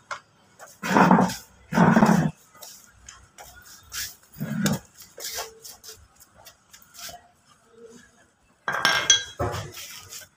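Metal parts of a Mitsubishi L300 gear-shifter linkage clinking and tapping as they are handled and fitted by hand. Two loud short sounds come about a second and two seconds in, and sharp ringing metal clinks come near the end.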